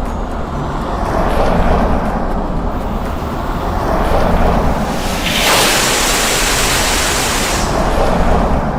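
A train running past: a steady rumble that swells and fades several times, with a loud rushing hiss from about five seconds in that lasts some two and a half seconds.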